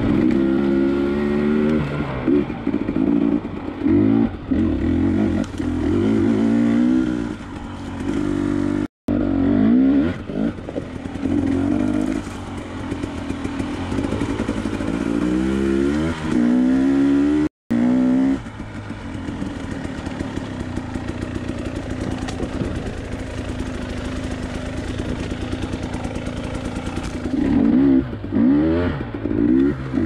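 A KTM 300 TPI two-stroke single-cylinder dirt bike engine under a rider on rough trail, revving up and easing off again and again. It holds a steadier note for several seconds past the middle, and the sound cuts out for an instant twice.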